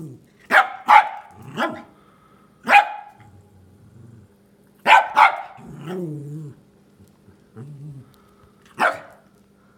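Pomeranian barking in sharp single barks, about seven in all, with low growls between them in the second half.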